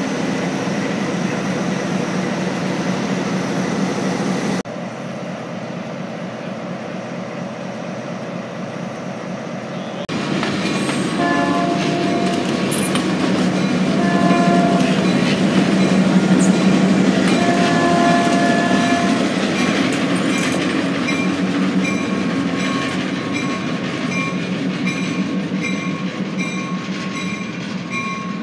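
Diesel locomotive running; about ten seconds in, a GP11 diesel locomotive sounds its horn three times, the last blast the longest, as it moves off with a freight train. Near the end there is a steady repeating tick.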